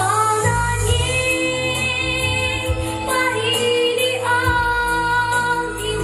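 Performance music with a woman singing long, held notes, several of them sliding up into place, over a steady bass line.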